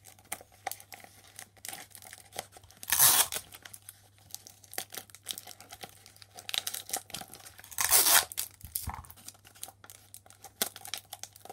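Clear sticky tape ripped loudly twice, about three seconds in and again near eight seconds, between steady crinkling of the paper squishy and its stuffing of plastic bag bits as the hands press the tape down.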